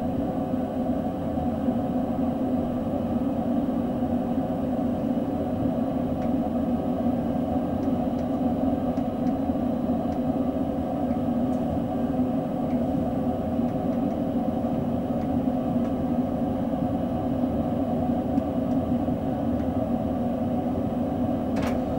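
Steady hum with a few held tones from a stationary electric S-Bahn train, heard inside its driver's cab while it stands at a platform; a single click near the end.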